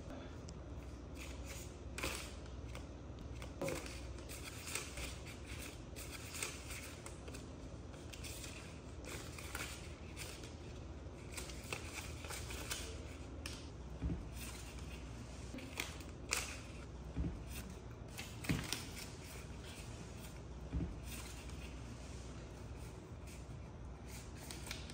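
Polymer banknotes rustling and crinkling as a small child handles them, with scattered light clicks and a few sharper knocks from a woven plastic basket and its lid.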